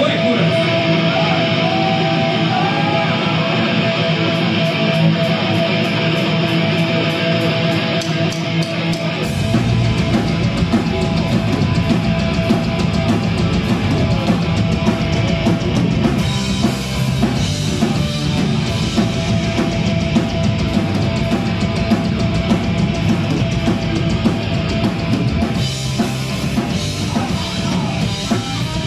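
Live rock band playing electric guitar and drum kit. About nine seconds in, the full low end of the band comes in.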